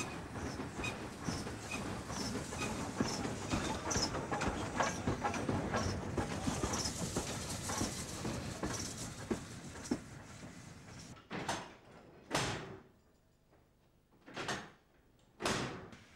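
LNER K4 steam locomotive and its carriages rolling past, a steady rumble of wheels on rails with regular clicking a little faster than once a second. The rumble fades about eleven seconds in, and four separate short whooshes follow.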